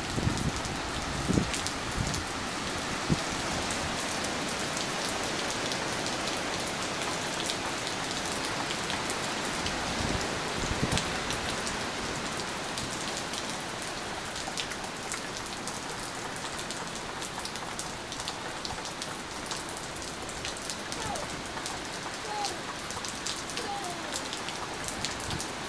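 Heavy rain from a hurricane's outer band falling steadily, with many sharp drop hits close by.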